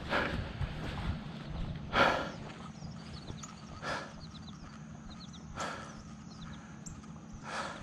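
A man panting hard and out of breath: about five heavy breaths, roughly two seconds apart, the loudest about two seconds in.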